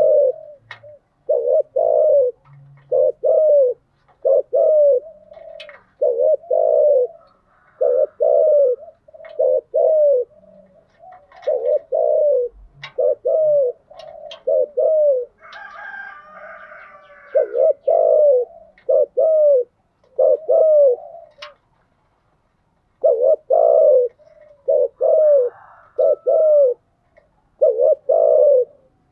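Spotted dove cooing over and over in short groups of low coo notes: a lure-bird recording of its rapid cooing and calling song. A brief, higher, rougher sound comes in about halfway through, and the cooing breaks off for about a second later on.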